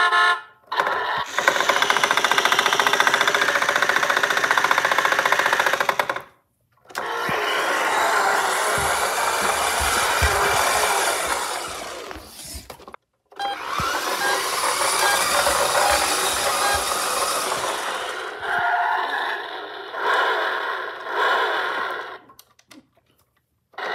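Road Rippers Victory Lap Monte Carlo battery-powered toy race car running: its electric drive motor and gearbox whirring together with its electronic engine sound effect from a small speaker. It runs in three long stretches of about five seconds each with short breaks between, then a few shorter bursts near the end.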